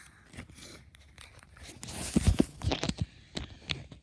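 Rustling and scraping handling noises with scattered sharp clicks and a short crackly burst about two seconds in.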